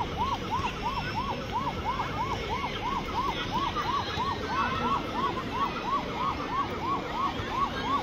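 Electronic siren sounding in quick up-and-down whoops, about three a second, over the murmur of a crowd.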